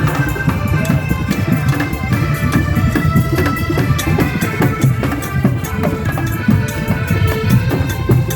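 Loud parade music: fast, dense drumming over a low beat, with a melody of long held notes.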